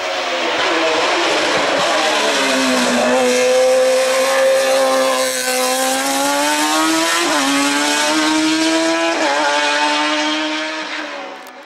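Sports-prototype race car's engine at high revs on a hill-climb run. The pitch falls over the first few seconds, then climbs steadily with two quick upshifts about seven and nine seconds in, and the sound drops away at the end.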